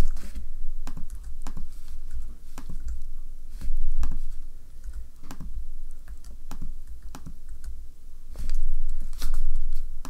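Typing on a computer keyboard: irregular clusters of keystrokes as numbers are entered into spreadsheet cells.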